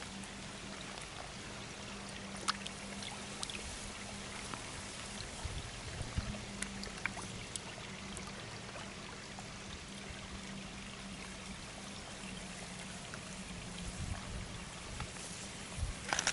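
Water running steadily in a koi pond, with scattered small splashes and slurps as koi mouth at the surface, and a cluster of splashes near the end. A faint steady low hum runs underneath.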